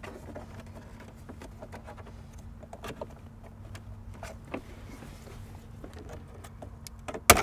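Plastic trim tool prying at a plastic dashboard bezel: scattered faint clicks and scrapes of plastic on plastic, then a sharp, loud snap near the end as a retaining clip lets go. A steady low hum runs underneath.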